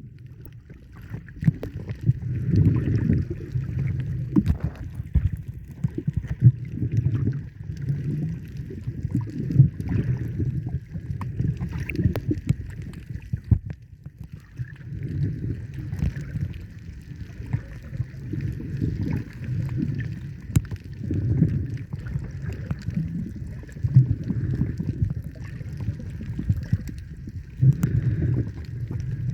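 Water sloshing and gurgling in irregular low surges every second or two, with a faint steady hum above.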